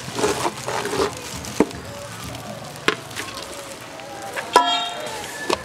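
Shredded cabbage rustling as it is scraped off a plastic plate into a steel bowl, followed by two sharp knocks, likely the plate tapping the bowl's rim. Near the end a short pitched sound is the loudest moment.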